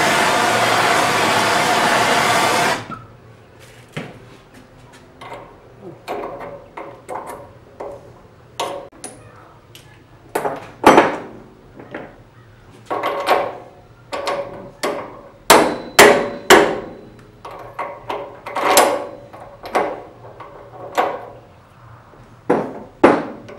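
Hand-held gas torch hissing as it heats an aluminium steering-rack housing so a bearing can be dropped in; it cuts off suddenly about three seconds in. Then a long run of sharp, irregular metal knocks and clanks from tools and parts handled on a workbench, some loud and ringing briefly.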